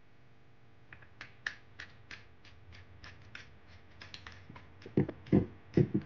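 Light, sharp clicks about three a second as a wire is worked into and fastened in the screw terminals of a plastic three-gang wall switch, then a few louder, duller knocks near the end as the switch is handled.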